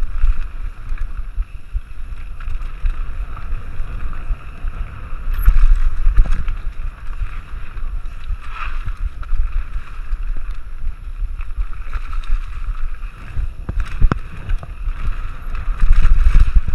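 Mountain bike descending fast on a dry dirt trail: wind buffets the rider-mounted camera's microphone in a low rumble, over steady tyre noise on the dirt. A few sharp knocks and rattles come from the bike hitting bumps.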